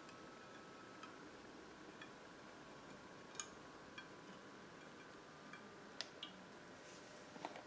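Near silence: faint room tone with a steady low hum and a few scattered faint ticks.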